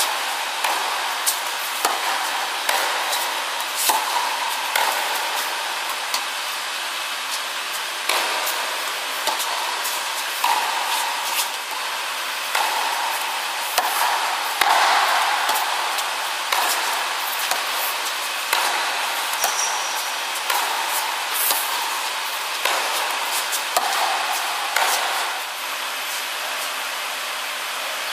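Tennis rackets striking balls in a rally at the net on an indoor hard court. Sharp pops of racket on ball and ball bounces come about once a second over a steady background hiss.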